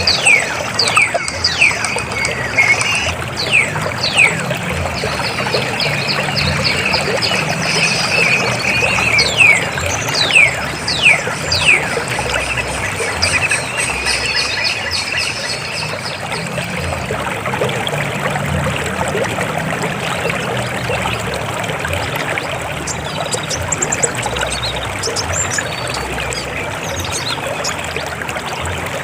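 River water flowing in a steady rush. Over roughly the first twelve seconds, a series of quick, high, falling whistles sounds above the water.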